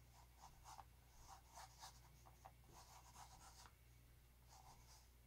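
Faint swishing of fingers and palm rubbing wet paint across a stretched canvas, a run of short strokes for about three and a half seconds, then a few more near the end.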